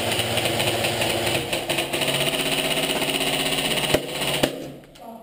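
A small electric motor whirs steadily with a fast buzz, then stops after two sharp clicks about four seconds in.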